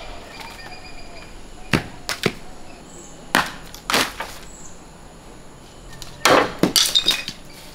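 Heavy knocks and thuds from coconut harvesting off a palm: single hits about two seconds in and again around three to four seconds, then a quick cluster of knocks near the end.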